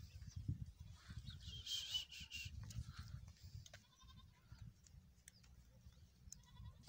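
Sheep bleating several times over a low rumble: a high, thin, wavering call about one and a half seconds in, then shorter, lower calls around four seconds and near the end.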